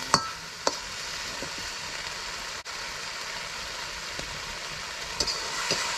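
Food frying in a wok with a steady sizzling hiss, with a few sharp clicks of a metal utensil against the wok near the start and again near the end.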